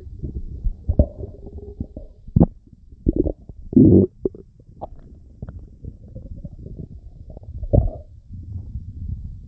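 Human stomach rumbling and gurgling: a low continuous rumble broken by irregular short, louder gurgles and bubbling squelches, the loudest about four seconds in and again near the end.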